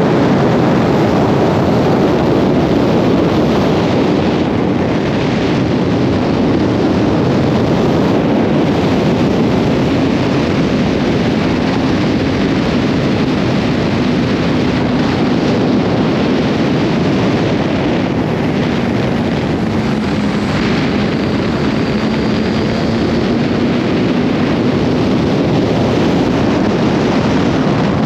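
Yamaha FZ1's inline-four engine pulling at speed, with heavy wind rush over a bike-mounted microphone. The engine note sinks slowly over most of the run, then climbs a little again near the end.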